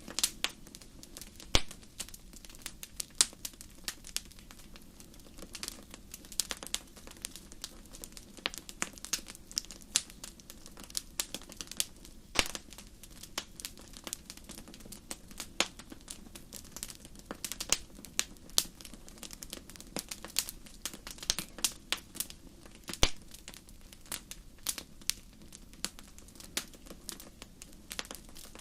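Wood fire crackling: a steady stream of irregular sharp pops and snaps over a low, even hiss of burning.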